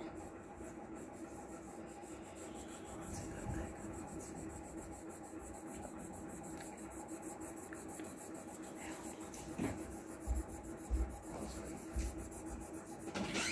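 Colour pencil scribbling on paper, a steady scratchy rubbing of quick back-and-forth shading strokes, with a few soft low bumps near the end.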